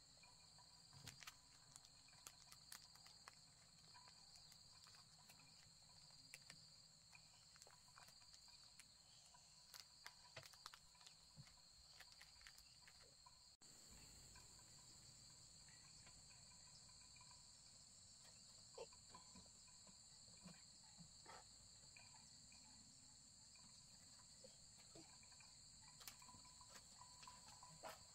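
Faint, steady chorus of insects, two high-pitched continuous trills, with scattered faint ticks and clicks; the sound breaks off for an instant about halfway through.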